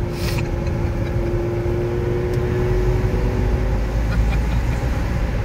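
Steady engine and road rumble heard from inside a moving car, with a steady hum that fades out about four seconds in and a brief hiss at the very start.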